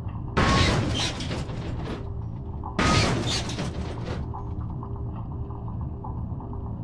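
Two sudden explosion-like blasts, each fading away over about a second and a half, the second coming about two and a half seconds after the first; a steady low hum runs underneath.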